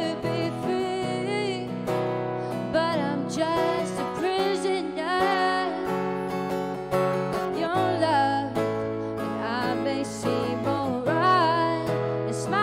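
A woman singing a slow song with vibrato over a strummed acoustic guitar.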